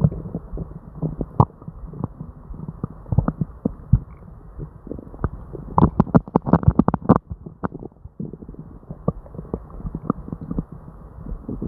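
Upset human stomach and bowels gurgling and rumbling: irregular short gurgles and pops, busiest about six to seven seconds in. Non-stop bowel sounds of an upset stomach with diarrhea.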